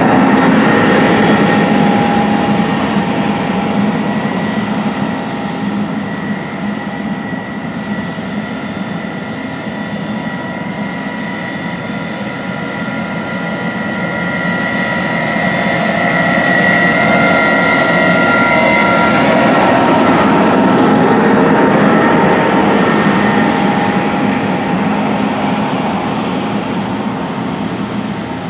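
Big John Deere S780 combines and tractor-pulled grain carts driving by on the road, their diesel engines running with a steady whine on top. The noise swells as one machine comes close about two-thirds of the way through, then fades.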